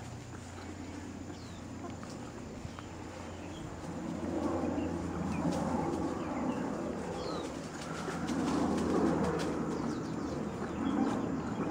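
Forest birds calling, with low cooing and short high chirps. From about four seconds in a louder, rough rustling layer comes in and swells and fades in patches.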